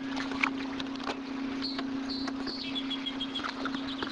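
Birds chirping with short high calls, including a quick run of repeated notes about halfway through, over a steady low hum; a couple of sharp knocks early on.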